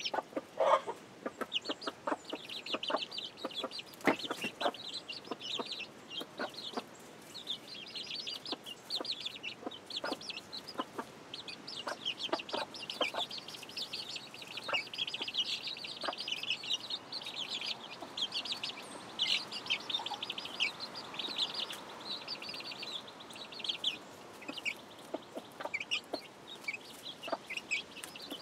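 A brood of young chicks peeping constantly in quick high chirps, with a broody hen clucking low now and then. Scattered short clicks are heard among the peeps.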